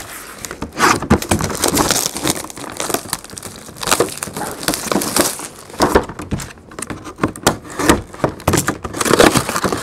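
Plastic shrink wrap crinkling and crackling as it is pulled off a cardboard mini-helmet box, in a dense run of rustles and sharp crackles.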